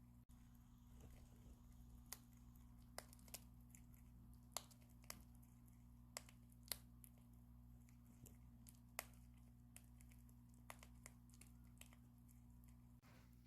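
Prairie dog cracking pumpkin seed shells with its teeth: faint, sharp cracks at irregular intervals, about a dozen in all.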